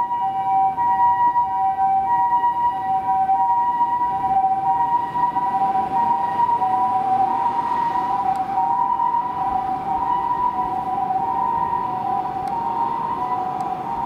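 Japanese ambulance two-tone "pii-poo" siren alternating steadily between a higher and a lower pitch, from a kei-car-based mini ambulance. Under it, the small engine can be heard revving at full acceleration from about the middle on.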